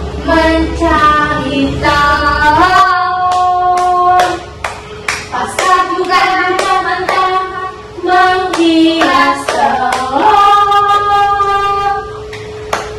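Singing with steady rhythmic hand clapping, the melody holding long notes twice.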